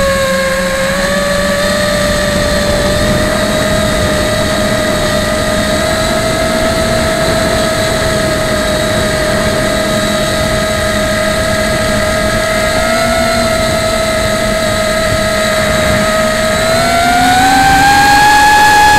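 Martian II FPV racing quadcopter's brushless motors and propellers whining steadily, recorded close-up from the onboard camera. The pitch rises near the end as the motors speed up.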